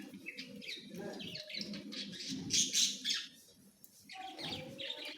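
Pet parrot chattering in a run of short chirps and calls, with a couple of sharper, high calls about two and a half seconds in, then a brief pause before it starts again.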